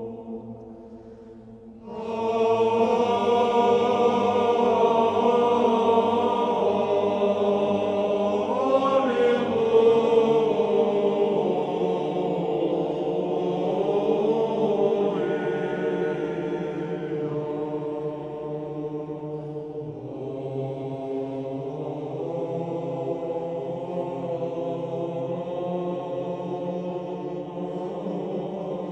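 Choral chanting in slow, sustained vocal lines. It comes in loudly about two seconds in and grows softer in the second half.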